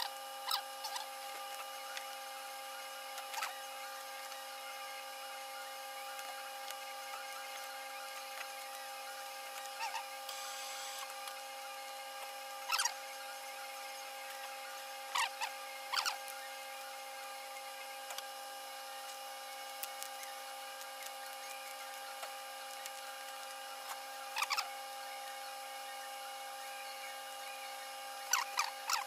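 Tailor's shears snipping through a coat's lining and seam threads: a handful of short, sharp snips spaced several seconds apart, over a steady electrical hum.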